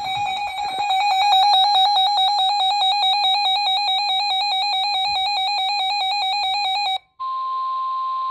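Emergency Alert System attention signal: a loud, harsh two-tone alarm held steady that cuts off sharply about seven seconds in. After a brief gap a single, higher steady tone sounds over a hiss for about two seconds.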